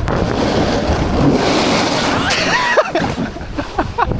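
Skis rushing and scraping over snow at speed with wind buffeting the microphone, then a brief yell a little past halfway and short, repeated vocal bursts near the end.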